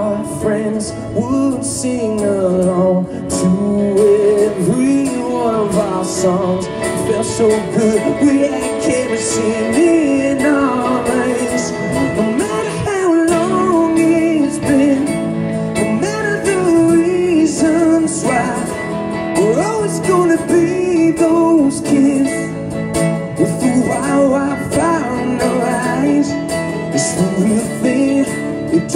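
A man singing into a microphone while strumming an acoustic guitar, a live amplified song performance.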